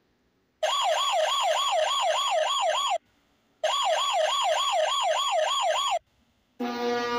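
Police car siren wailing in two bursts of about two and a half seconds each, its pitch swinging up and down several times a second. A deep, steady ship's horn starts near the end.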